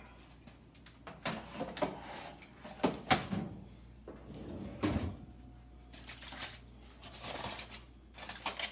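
A foil-covered metal roasting pan lifted out of an electric oven and set down on the stovetop with several clunks and knocks, the loudest about three seconds in and a heavier thump about five seconds in. Then aluminium foil crinkles as it is pulled back from a roast turkey.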